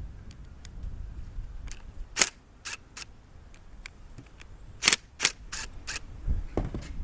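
Sharp clicks and taps of a lawnmower carburetor and its small parts being handled and taken apart, about seven in all, bunched around two seconds and five seconds in, over a low wind rumble on the microphone.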